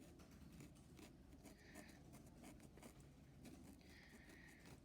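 Faint felt-tip marker strokes on a sponge: two short scratchy strokes among a few light ticks.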